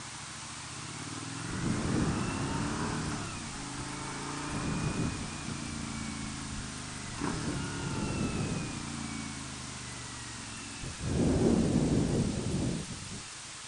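Suzuki V-Strom 1000 motorcycle's V-twin engine pulling away and revving up and down through the gears, with wind rushing over the microphone. Several louder surges come and go, the loudest about eleven seconds in.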